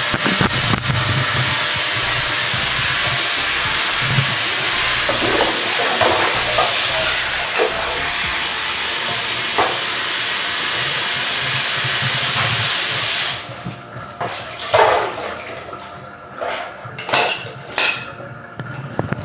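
Kitchen tap running steadily onto hard-boiled eggs to cool them, shut off suddenly about two-thirds of the way through. A few clinks and knocks of dishes follow.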